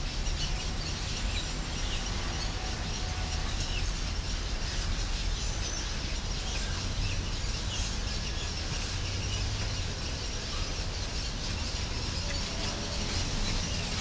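A dense, unbroken chorus of many birds chirping and calling in the trees, with a steady low rumble underneath.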